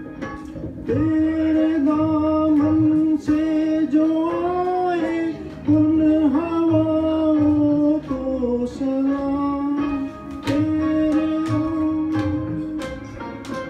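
Amplified karaoke-style performance of a Hindi film song: recorded backing music with plucked strings and a beat, under a long melody line of held notes that slide into pitch, sung by a man into a microphone.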